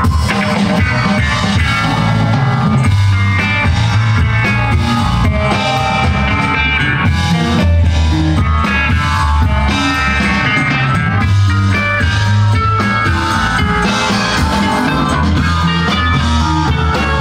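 Live rock band playing amplified: electric guitar, bass guitar and drum kit, with a strong, steady bass line.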